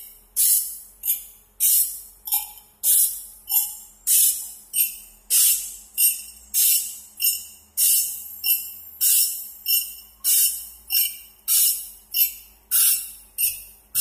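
Automatic sawmill bandsaw-blade sharpener: the abrasive grinding wheel grinds each tooth in turn as the feed arm advances the blade. Each pass is a short, bright grinding rasp that dies away, repeating evenly about three times every two seconds.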